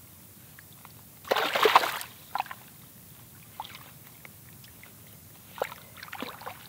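Shallow ditch water splashing as hands work a nylon cast net with a tilapia caught in it: one loud splash about a second and a half in, then a few small splashes and drips.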